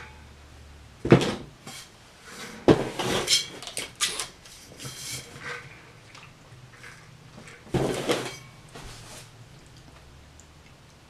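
A red insulated water bottle handled and drunk from: sharp knocks and clacks of the bottle and lid, a few seconds of gulping and sipping, and another knock about eight seconds in as it is set down.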